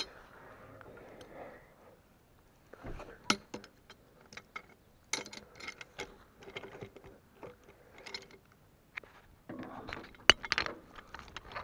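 Irregular clicks, metallic clinks and rustling from handling steel log tongs and rigging on a log in long grass. A sharp knock about ten seconds in is the loudest sound.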